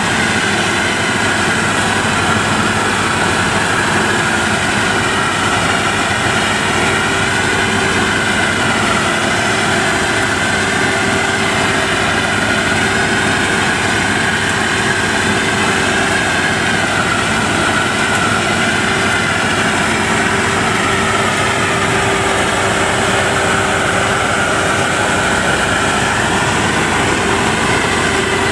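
World WD102PRO rice combine harvester running steadily as it cuts and threshes rice, with a high whine that wavers in pitch over its engine and machinery noise.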